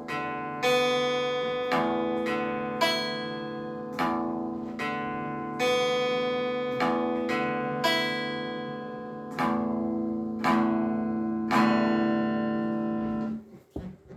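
Guitar chords strummed slowly, about one strum a second, each left to ring out before the next. The playing stops abruptly near the end.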